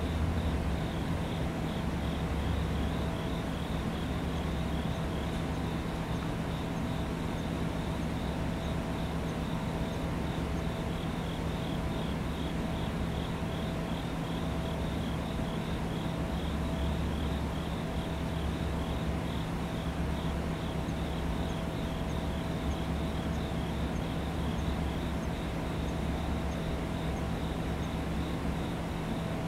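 Standing electric train giving off a steady electrical hum from its onboard equipment, with a low rumble that switches on and off a few times. A fast, even high chirping, like insects, runs over it.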